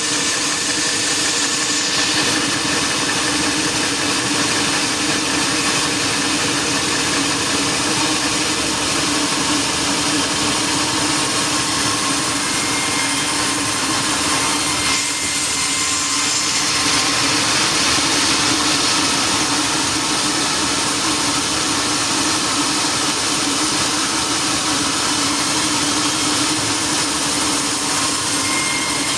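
Sawmill machinery running steadily: a constant engine-like drone with a steady hum, shifting briefly about halfway through.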